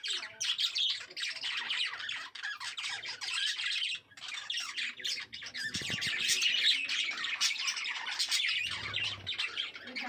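A group of budgerigars chattering and squawking without pause, a dense mix of quick chirps and warbles, with a brief break about four seconds in.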